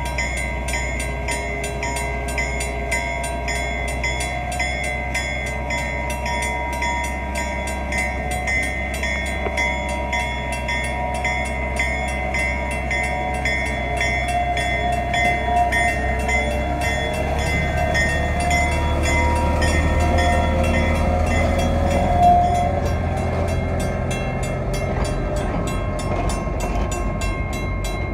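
Grade-crossing signal bell ringing in rapid, even strokes while a small diesel switcher locomotive rumbles past, hauling open-air passenger cars; the engine and train noise grows louder toward the middle.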